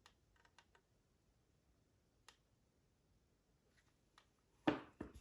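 Faint clicks and small handling noises of a plastic model kit being worked with a tube of Vallejo plastic putty along a seam. A brief, louder handling sound comes near the end, followed by a smaller one.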